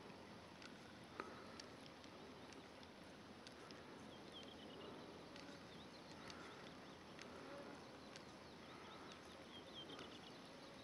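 Near silence: faint outdoor ambience with a few short runs of faint, distant bird chirps and an occasional light click.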